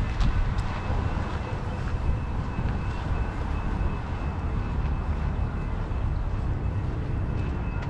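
Outdoor background noise: a steady low rumble, with a faint high steady tone above it and a few light clicks.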